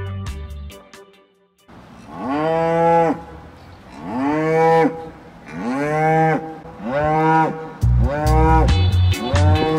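A cow mooing, about six drawn-out moos in a steady series a little over a second apart, starting about two seconds in. Music fades out at the start and comes back under the last few moos.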